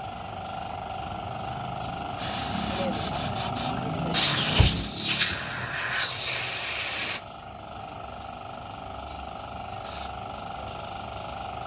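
A pressurized spray jet hissing, first in several short bursts and then in one longer blast of about three seconds, over a steady background hum.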